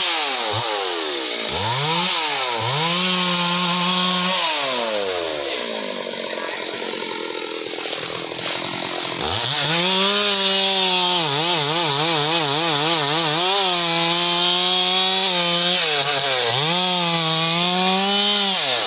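Two-stroke chainsaw revved in two short bursts, then dropped to idle for a few seconds. It then runs at high revs for most of the rest with a wavering pitch and a brief dip, as it cuts into the felled teak wood.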